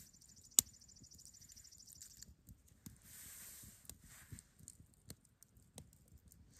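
Soft clicks, crackles and tearing as a small cooked fish with crispy skin is picked apart by hand, with one sharp click a little over half a second in. A high, rapid trill sounds for about the first two seconds.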